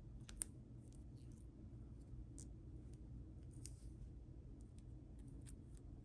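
Faint clicks and ticks of fingernails handling a dry nail-polish strip, with one sharp click about half a second in, over a low steady hum.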